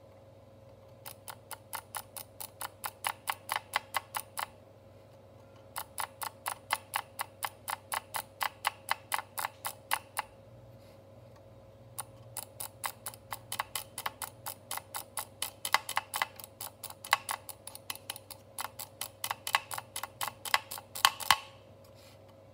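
Wired computer mouse's left button drag clicked, a fingertip dragged across it to make rapid clicks. Three runs of about five clicks a second, the last one the longest.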